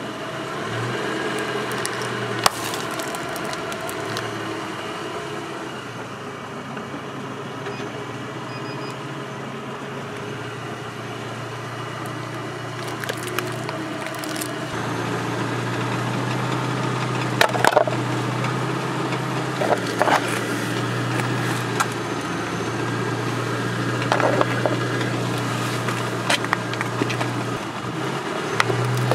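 A car tyre rolling slowly over plastic objects on asphalt and crushing them, with scattered crackling and several sharp cracks as the plastic gives way. Under it runs the low, steady hum of the car's engine.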